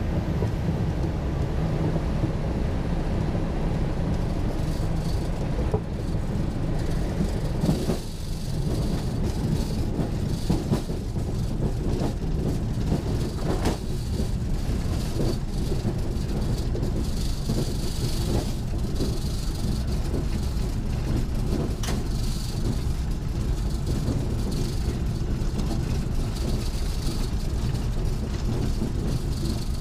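T-6 Texan's Pratt & Whitney R-1340 nine-cylinder radial engine running in flight, a steady drone heard from inside the cockpit.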